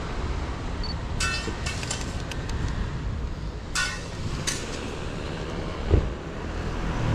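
Outdoor roadside ambience: a steady low rumble, with a few sharp clicks and clinks between about one and five seconds in and a single dull thump about six seconds in.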